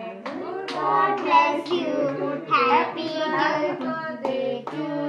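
A group of people singing together, high children's voices among them, with a few hand claps in the second half.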